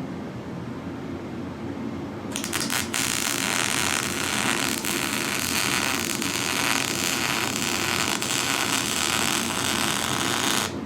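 Welding arc striking about two seconds in with a few sputters, then a steady crackling hiss for about eight seconds that cuts off suddenly near the end, as a V-band flange is welded onto a turbo hot-side housing.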